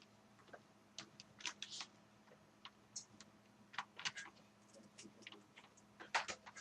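Irregular small clicks and ticks of a laptop's plastic top cover and its small screws being handled and fastened, with a cluster of louder clicks near the end, over a faint steady hum.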